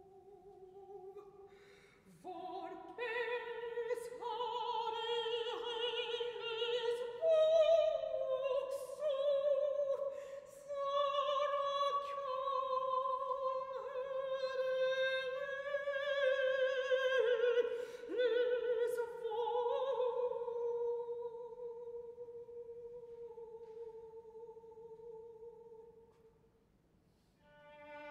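Mezzo-soprano singing a slow, sustained melody with wide vibrato, with a viola accompanying. The phrase ends on a long held note that fades away, and a new entry begins near the end.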